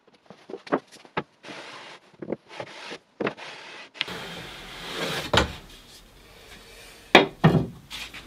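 A cordless drill-driver runs in three short bursts, driving screws into MDF, with a few sharp clicks before them. From about four seconds in, a wooden straightedge rubs and slides across the MDF boards, with a few knocks as it is set down and moved.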